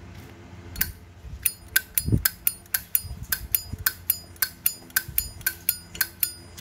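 Brushed-chrome Zippo lighter's lid flicked open and snapped shut over and over: a run of sharp metallic clicks about three a second, with a bright ring. The clean, crisp click is what is called a good Zippo sound.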